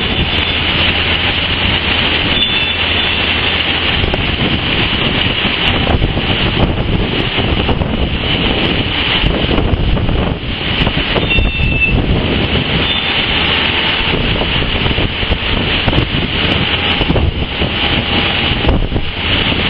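Diesel site machinery working: a Bobcat S175 skid-steer loader and a site dumper running together, under a steady loud hiss.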